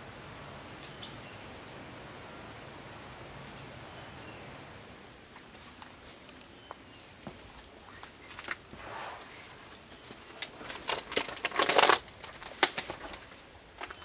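Steady high-pitched insect drone. From about eight seconds in come scattered rustles and knocks of movement over leaf litter and stones, with a loud half-second flurry of flapping or scrabbling near the end.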